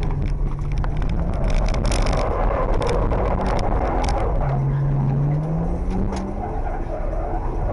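Nissan Skyline drift car's engine from inside the cabin, revs dropping around the middle and climbing again towards the end. Over the first half the tyres scrub as the car slides, with a rapid crackle of grit flicking up off the gritty surface.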